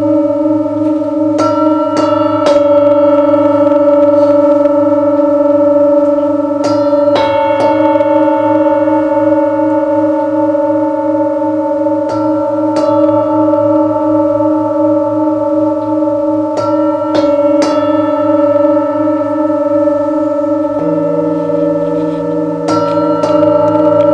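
Singing bowls struck a couple at a time about every five seconds, their tones ringing on and overlapping with a slow wavering beat. A deeper steady tone joins about 21 seconds in.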